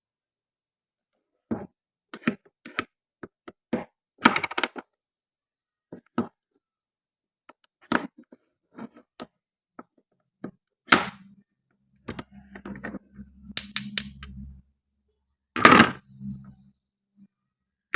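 Scattered light clicks and knocks of plastic and wooden toy food being cut and handled, some in quick clusters. A low, steady hum runs for about two seconds past the middle and briefly again near the end.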